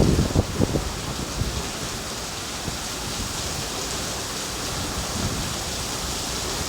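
Steady rain falling, an even hiss, with a few louder low bumps in the first second.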